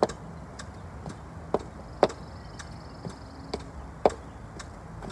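High-heeled boots striking a brick step and the ground in a step-up exercise: sharp, even taps about two a second, some louder than others.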